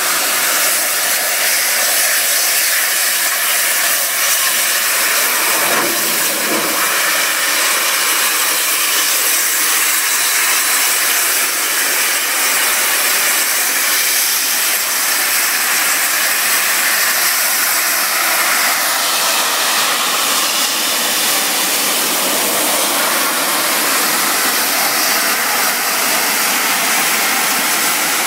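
Bulleid Battle of Britain class steam locomotive 34067 Tangmere hissing steam steadily and loudly as it draws slowly past at close range.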